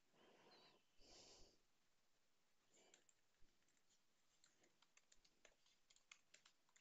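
Very faint computer keyboard typing: a quick run of light key clicks over the last two or three seconds, against near silence.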